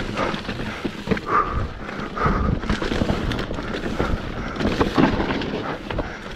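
Kona Process 153 full-suspension mountain bike descending rocky singletrack: tyres grinding over dirt and stones, with frequent sharp knocks and rattles from the bike over the rocks. Wind rumbles on the microphone underneath.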